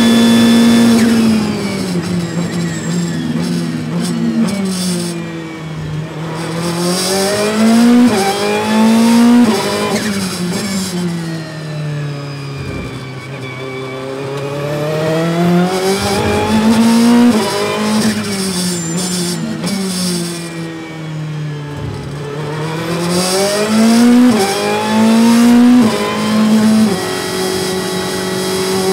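Ferrari 488 GT Modificata's twin-turbo V8, heard from inside the cockpit on track. The note is steady and high at full speed, then drops sharply about a second in as the car brakes from top speed. It rises and falls several times through slow corners, stepping up at each upshift, and settles steady near the end.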